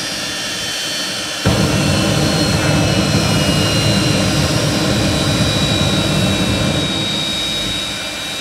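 Jet-powered rocket car's engine blasting flame at a van: a steady high whine, then, about a second and a half in, a sudden loud low rush as it fires harder, easing near the end.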